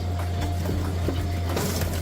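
Wood-crushing machine running: a steady low drone with scattered sharp cracks and knocks as wood is broken up.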